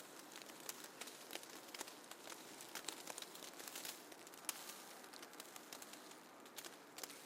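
Faint snowfall ambience: a soft steady hiss with scattered light ticks and pattering at irregular intervals, a few sharper ticks near the middle.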